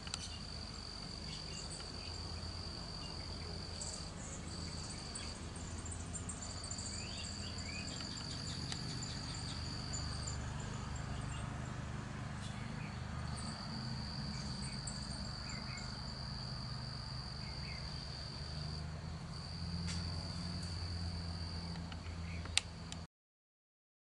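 Outdoor summer ambience: insects trilling steadily in long stretches that break off briefly now and then, with a few short bird chirps and a low background hum. The sound cuts off abruptly near the end.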